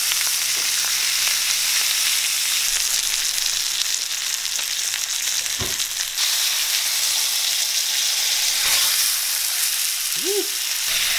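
Whole spadefish frying in hot oil and butter in a nonstick skillet, sizzling steadily.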